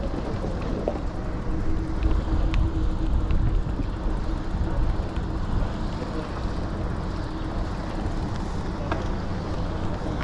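Steady low rumble of wind on the microphone and road noise while riding a Trek Marlin 7 mountain bike, with a few faint clicks.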